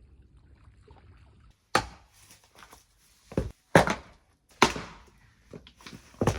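Wood being chopped: five or six sharp chopping blows at uneven intervals, starting nearly two seconds in.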